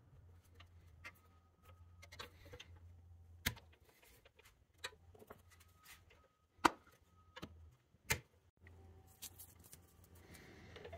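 Small clicks and taps of metal hubcaps being pressed onto the wheels of a 1962 Tonka pickup toy, with three sharper snaps as they seat, over a faint low hum. Near the end, a soft rustle of tape being handled.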